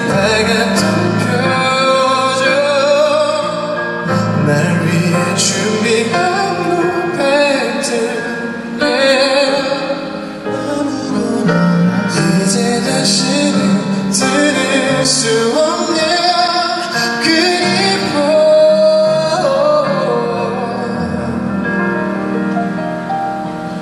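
A man singing live into a handheld microphone with instrumental accompaniment.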